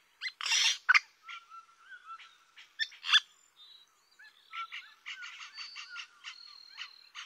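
Tropical rainforest chorus: many overlapping short chirps, clicks and whistles of frogs and birds, with a loud harsh call about half a second in.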